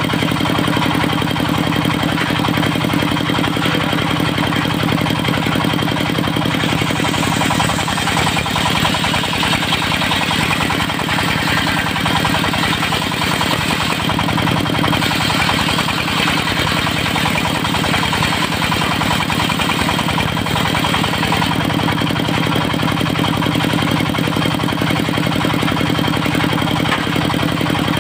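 Portable circular sawmill running steadily on its engine. About a quarter of the way in, the low engine note weakens and a harsher, higher hiss comes up for roughly half the time as the blade cuts through teak, then the plain running note returns.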